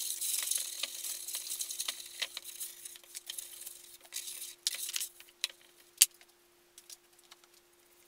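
Hand sanding a polyurethane-varnished wooden tabletop with fine 240-grit sandpaper between coats: scratchy rubbing strokes that thin out and die away over the first six seconds. A sharp tap about six seconds in, and a faint steady hum underneath.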